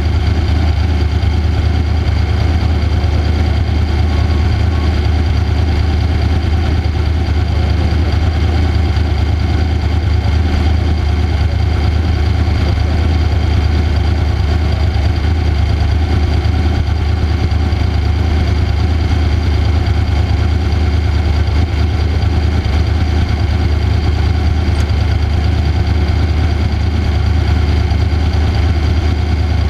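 Off-road race vehicle's engine running at a steady speed, a constant low drone that holds the same pitch with no rise or fall in revs.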